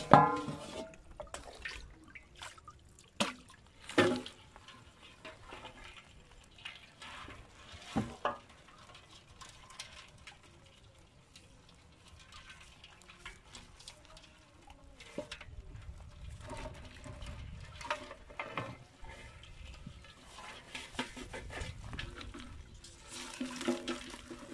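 Water splashing and sloshing as a ring net trap full of crabs and fish is handled and shaken out into a metal basin, with a few sharp knocks, the loudest right at the start.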